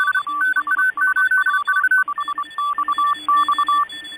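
Rapid electronic beeps jumping between two pitches in short and long tones, over a steady hiss like radio receiver noise: a radio data or telegraphy signal sound effect.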